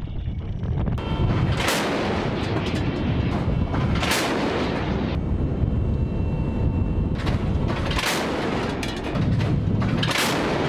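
A warship's A-190 deck gun firing single shots, about four reports two to four seconds apart, each followed by a rolling rumble, over a steady low rumble of wind and the ship under way.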